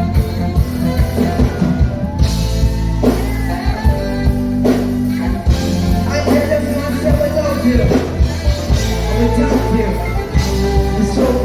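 Live reggae band playing, with a steady heavy bass line and regular drum hits, and a singer's voice over the music.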